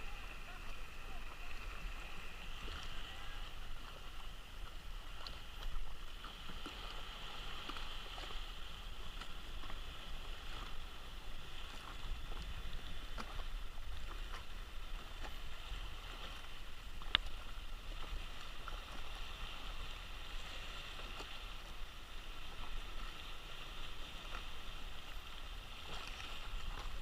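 Water lapping and gurgling around a stand-up paddleboard, a steady wash with faint scattered ticks and one sharp click about two-thirds of the way through.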